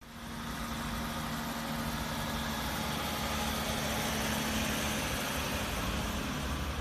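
Engines of parked emergency vehicles idling, a steady running hum with a steady low tone.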